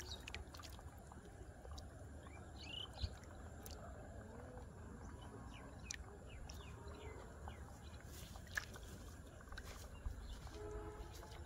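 Faint splashing and sloshing of a hand grappling a fish in shallow muddy water, with a few scattered ticks and light splashes, and birds chirping in the background.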